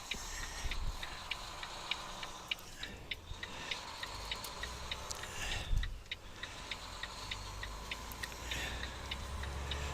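Semi truck's turn signal ticking steadily, about three ticks a second, inside the cab over the low hum of the idling engine.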